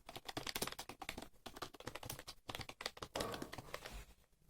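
Computer keyboard being touch-typed: a quick, steady run of key presses that thins out briefly near the end.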